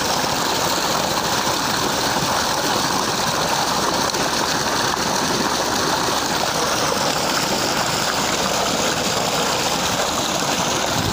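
Tubewell water gushing out of a pipe and rushing along an earth irrigation channel in a steady, loud rush. The tubewell is driven by a tractor running at low revs, and its engine sits under the water noise.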